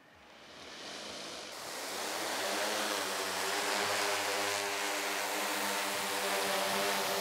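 Two DJI MG-1P eight-rotor agricultural spray drones spinning up and lifting off. The rotor sound rises out of near silence over the first two seconds, then holds as a steady loud buzz carrying several steady pitched tones.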